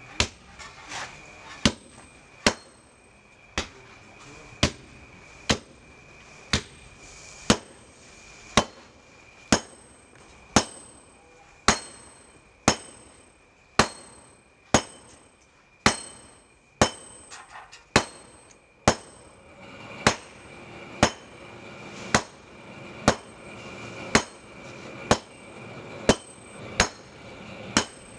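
Hand forging: a long-handled hammer strikes red-hot iron on a small iron anvil at a steady pace of about one blow a second, each blow ringing with a metallic note. A few lighter, quicker taps come about two-thirds of the way through.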